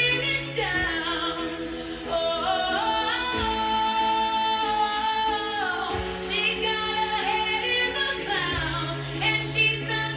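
Music with a woman singing long held, gliding notes over sustained bass notes that change every couple of seconds.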